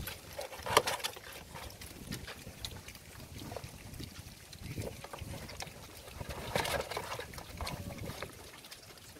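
Piglets eating together from a feed basin: irregular chewing and slurping, loudest about a second in and again around seven seconds in.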